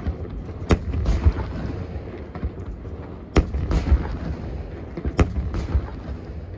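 Fireworks shells bursting overhead: three sharp bangs, each followed about half a second later by a second, smeared crackle or echo, with a low rumble of booms between them.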